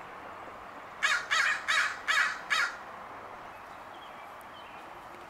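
American crow cawing: five harsh caws in quick succession, starting about a second in.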